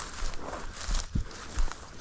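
Footsteps walking through field cover, with irregular thuds and crackling rustles of brush.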